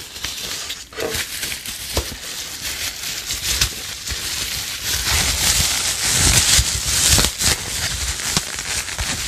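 Bubble wrap crinkling and rustling as hands dig through and pull bubble-wrapped parts out of a cardboard box, busiest and loudest about two thirds of the way through.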